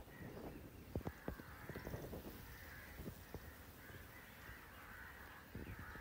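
Faint bird calls repeating in the background, with scattered light clicks and rustles close by.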